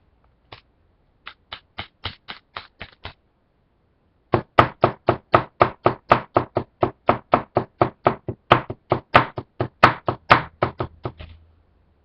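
Knocking tapped out as a rhythm: a single knock, a short run of about eight, a pause, then a long run at about four knocks a second with some struck harder, stopping about a second before the end.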